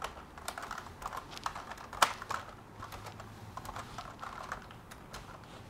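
Typing on a computer keyboard: a run of unevenly spaced keystroke clicks, with one harder key strike about two seconds in.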